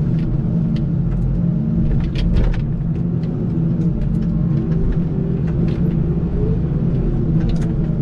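Diesel engine of a heavy farm vehicle running steadily, heard from inside its cab as a continuous low drone. A few light clicks or rattles come through, a cluster about two seconds in and another near the end.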